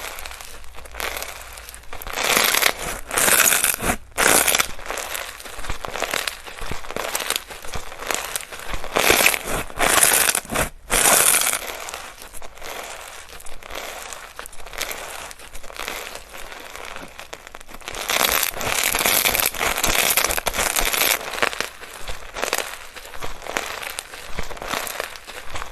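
Slime being squeezed and pressed by hand, making irregular crackling, crinkling squishes that swell and fade in uneven bouts, with two brief breaks.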